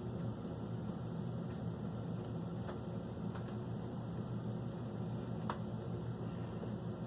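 Steady low hum of room noise, with a few faint ticks, the clearest about five and a half seconds in.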